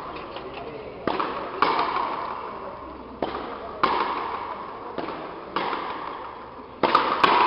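A frontenis rally: the hard rubber ball cracked by strung racquets and smacking the front wall, about eight sharp cracks at uneven intervals, each ringing on in a long echo off the court's walls.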